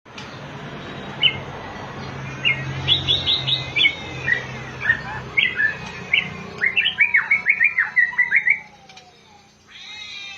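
White-rumped shama singing: a string of short whistled and chirped notes, with a fast run of notes about two-thirds of the way in. A low steady hum runs underneath in the first half.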